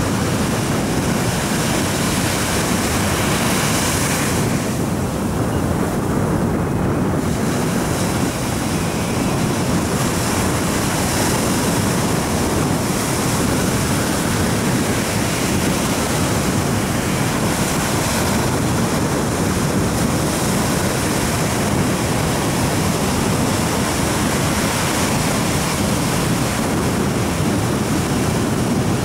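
Steady rush of sea surf and wind, with the wind buffeting the microphone.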